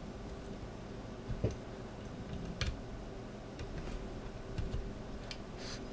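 A handful of faint, irregular clicks and taps from handling a PowerPC CPU daughter card with its heatsink fitted, over a steady low background hum.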